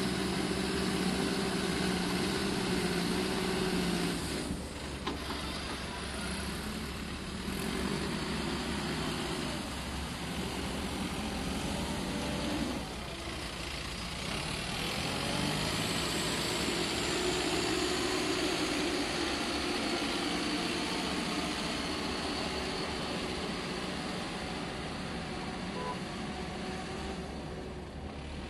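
Backhoe loader's diesel engine running steadily as the machine pushes and scoops wet silt with its front bucket. The engine note swells and eases, heaviest in the first few seconds and again about halfway through.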